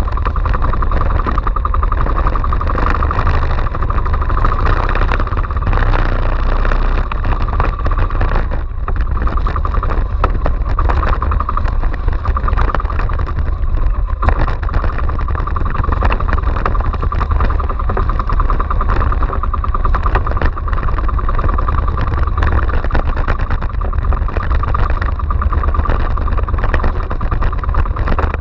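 Small outrigger fishing boat's engine running steadily under way, over a constant low rumble of wind and waves splashing against the hull and outriggers.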